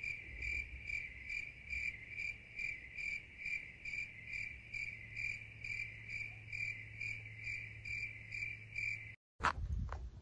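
A cricket chirping steadily, a high, even chirp repeating about three times a second over a faint low hum. It cuts off about nine seconds in, and a few sharp clicks follow.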